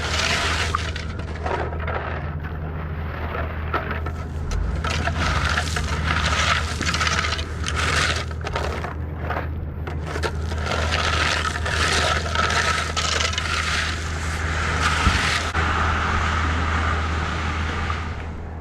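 Repeated scraping, knocking and clattering of tools and boards over a steady low engine hum.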